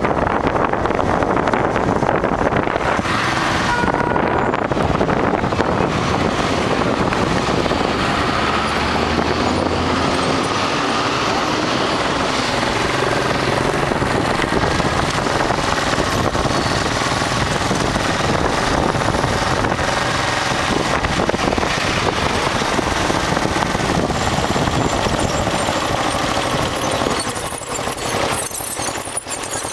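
Motorcycle engine running as the bike rides through city traffic, its pitch rising and falling, under a steady rush of wind and road noise.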